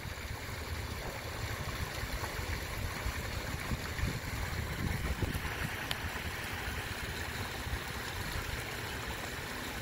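Steady rushing of moving pond water, with a low rumble underneath.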